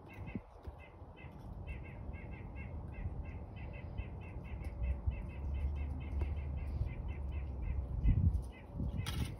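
A bird chirping over and over in short, quick notes, in runs of several a second, over a steady low rumble.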